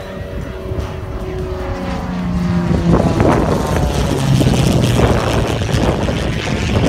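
Propeller-driven SX300 kit plane's engine passing overhead, growing louder and dropping in pitch as it goes by.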